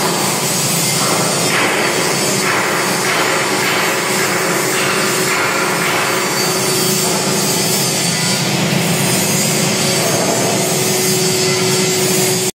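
Metal lathe running steadily: a continuous machine noise with a steady hum underneath.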